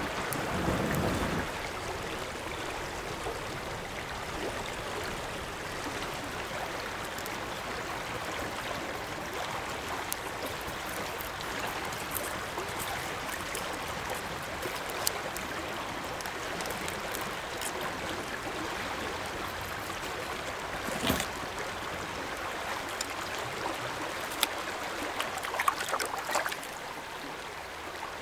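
Steady rushing of a shallow creek. For about the first second and a half there is a low rush of breath blown onto a smouldering kindling fire. Scattered small clicks and knocks occur throughout, with a few sharper ones near the end as the fish is rinsed in the water.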